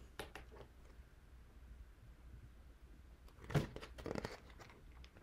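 Paper picture book being handled and its pages turned: faint rustles and soft clicks, then a louder flurry of paper rustling about three and a half seconds in.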